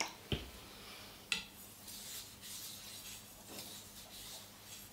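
Two knocks in the first second and a half, then the steel blade of a Global chef's knife drawn back and forth across a wet whetstone in short repeated scraping strokes.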